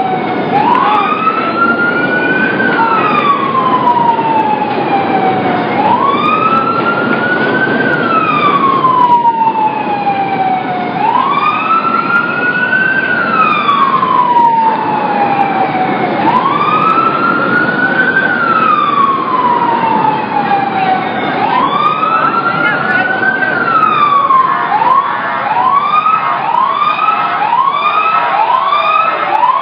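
Emergency vehicle siren in a slow wail, rising and falling about once every five seconds. Near the end it switches to a fast yelp, about two cycles a second. Steady street noise runs underneath.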